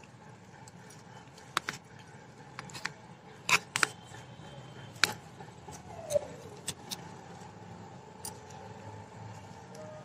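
Metal tines of a small hand cultivator scraping and clicking through loose potting soil in irregular short strokes, as the topsoil around the plant's roots is gently loosened.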